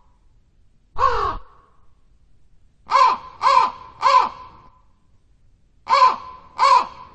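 Crow cawing: a single caw about a second in, a quick run of three caws, then two more near the end.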